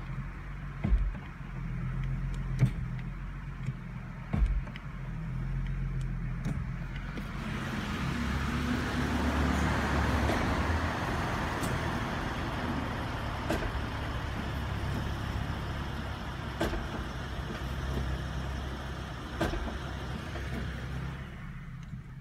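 2015 Ford Mustang idling with a steady low hum, with three sharp clunks in the first five seconds and fainter clicks later: the automatic transmission clunking as it is shifted from park into reverse, the fault shown here. From about seven seconds to near the end a louder rushing sound joins the idle.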